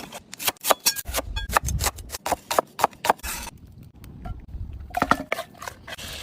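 Food-preparation clatter: a quick run of sharp taps and clinks from utensils and cookware being handled, some ringing briefly like metal, with low thumps, easing off for about a second midway.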